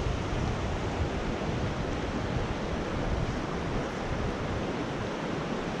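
Steady rush of a shallow, rocky mountain trout stream flowing over stones, with a low rumble of wind on the microphone.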